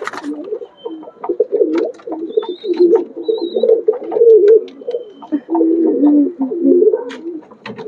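Domestic pigeons cooing over and over, low and wavering, with scattered light clicks and taps among them.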